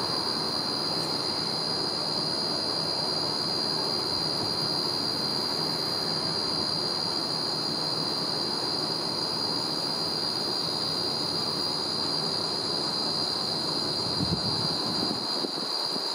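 Wind rumbling on the microphone, with a steady high-pitched drone running through it.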